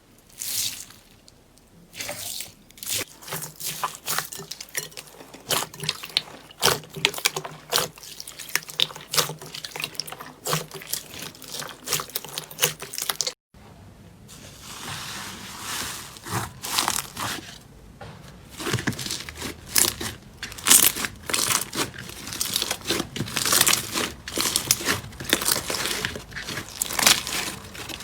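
Slime being squeezed, stretched and poked by hand: dense runs of squishy crackles and popping clicks. The sound cuts off suddenly about halfway through, and similar crackling starts again.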